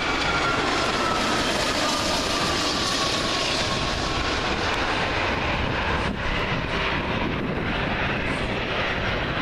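Boeing 757 airliner's jet engines on landing approach passing close by: loud, steady jet noise with a whine that slides down in pitch over the first few seconds.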